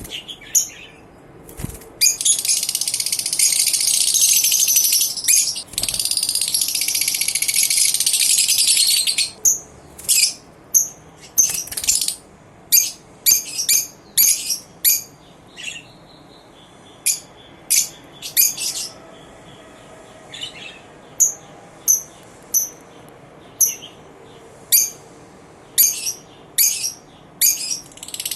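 Lovebirds calling: a dense, continuous shrill chatter for about seven seconds, then separate sharp, high chirps, roughly one or two a second.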